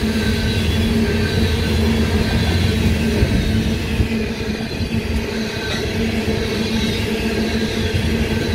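Freight train's railroad tank cars rolling past, steel wheels on rail making a steady, continuous rolling noise with a faint high whine over it.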